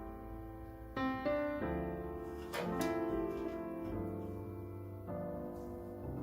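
Background piano music: chords and notes played at an even pace.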